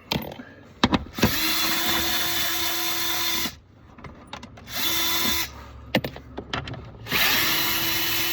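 Small Snap-on cordless drill spinning a 1/4-inch socket to back out dash panel bolts, in three runs of steady motor whine: a long one, a short one and another long one near the end, with a few sharp clicks between them.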